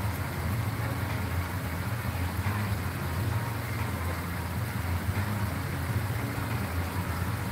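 A steady low rumble with an even hiss over it, unchanging throughout.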